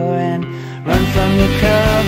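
Music: a softer passage, then about a second in a louder full-band section with heavy bass and a steady beat cuts in abruptly.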